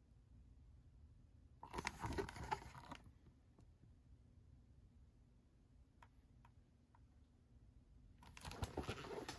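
Pages of a picture book being turned: two short bursts of paper rustling and handling, about two seconds in and again near the end, with faint room tone between.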